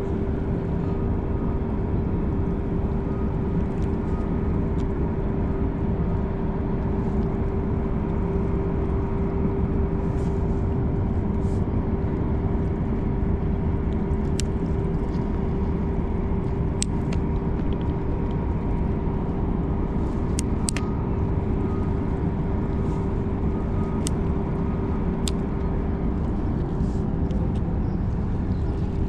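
Steady low rumble with a constant droning hum that stops near the end, with a few faint ticks scattered through.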